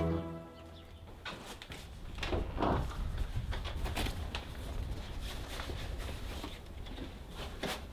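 Short rustles and soft knocks of a padded nylon pizza delivery bag being handled as a cardboard pizza box is slid out of it, with a low steady rumble underneath.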